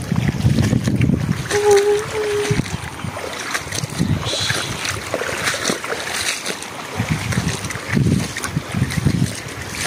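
Wind buffeting the microphone in gusts, with footsteps splashing and sloshing through shallow water on a flooded rice-field path. A short two-part hum sounds about a second and a half in.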